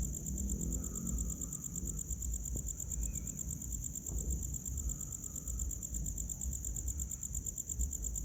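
Night insects, crickets by the sound, trilling steadily in a high, rapid pulsing, over a low rumble.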